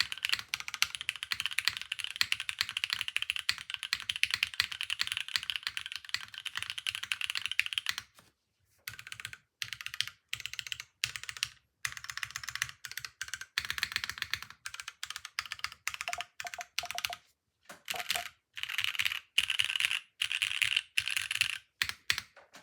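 Spyder TKL custom mechanical keyboard with lubed Cherry MX2A Black linear switches being typed on. A fast, steady stream of keystrokes runs for about eight seconds, then shorter bursts of typing follow, broken by brief pauses.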